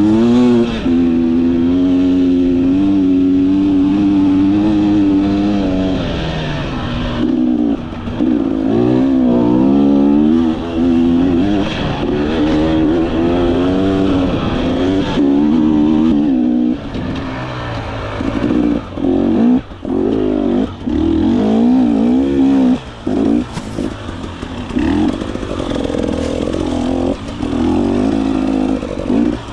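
KTM 300 XC-W 300cc two-stroke single-cylinder enduro motorcycle engine being ridden, revving up and down continuously. In the second half the throttle is chopped and reopened over and over, giving short drops in the engine note.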